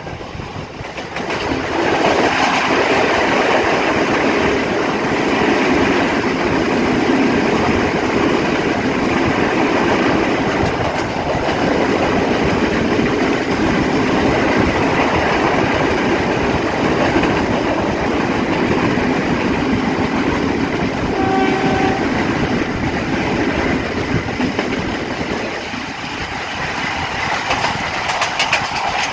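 Passenger train running at speed, heard from an open carriage doorway: a loud, steady rush of wheel, track and carriage noise.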